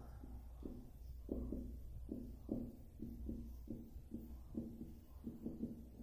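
Faint writing on a board: short, irregular strokes, several a second, over a low steady hum.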